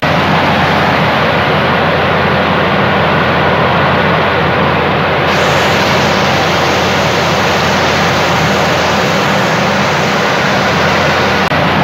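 Heavy rain pelting shallow standing water on the ground: a steady, loud rushing hiss, a little brighter about halfway through.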